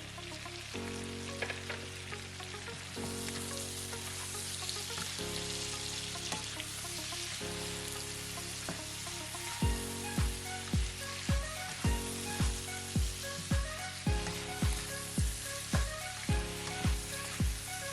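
Food frying and sizzling in hot oil in a pan, a steady hiss, under background music of held chords that change every couple of seconds. About ten seconds in, a steady deep beat about twice a second joins the music and becomes the loudest sound.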